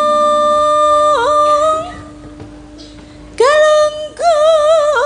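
A sinden's female voice singing long, drawn-out notes of a slow song. One note is held for about two seconds with a brief dip; after a short gap a new note slides up about halfway through and is held with a wavering vibrato. A faint steady low note sounds underneath.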